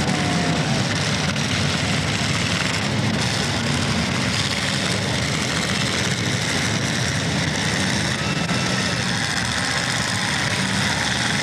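Several demolition derby cars' engines running together, a steady loud rumble as the cars push against one another on the dirt.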